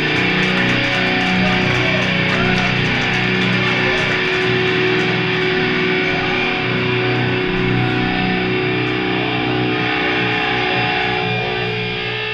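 Live metalcore band playing heavy distorted electric guitars over drums, with fast cymbal ticks through the first few seconds. Near the end the guitars hold long ringing notes.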